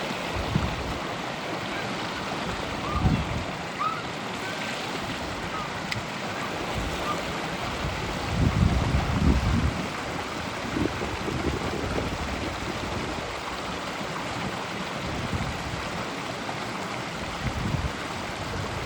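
Creek water running over rocks, a steady rushing hiss, with a few low rumbles of wind on the microphone, the strongest about eight to ten seconds in.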